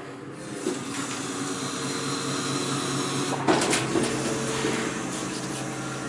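Forklift engine running steadily, with a clunk about three and a half seconds in.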